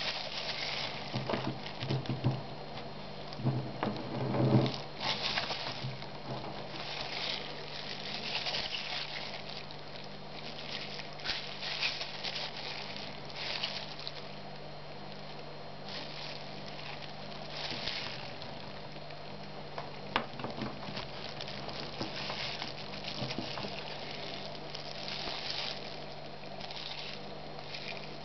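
Handling noise as a disc brake caliper is turned over in the hands: irregular rustling of a disposable plastic glove and paper, with a few light knocks in the first five seconds. A faint steady hum runs underneath.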